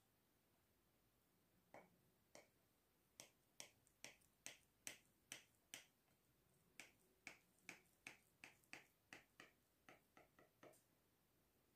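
Knife blade clicking against a glass dish as it is pressed down through a soft round of white cheese: about twenty faint, sharp clicks, two or three a second, starting about two seconds in and stopping shortly before the end.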